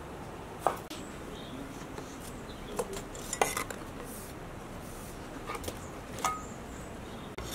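Large kitchen knife cutting lamb fat on a wooden cutting board: about six short, sharp knocks of the blade against the board at uneven intervals, over a steady low background noise.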